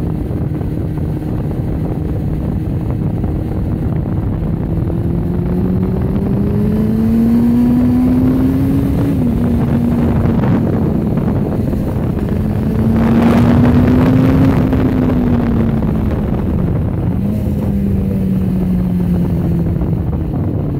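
1999 Kawasaki ZX-6R inline-four engine running at road speed, with wind noise on the microphone. The engine note climbs, dips sharply about nine seconds in, climbs again to its loudest around thirteen to fourteen seconds, then falls away.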